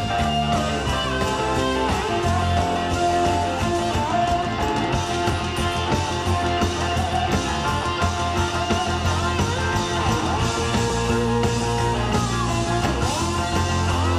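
Live rock band playing an instrumental passage, an electric guitar leading with bent notes over bass and drums.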